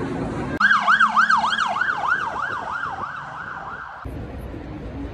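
Emergency vehicle siren in fast yelp mode, its pitch rising and falling about three times a second; it starts and cuts off abruptly, and low city traffic rumble follows.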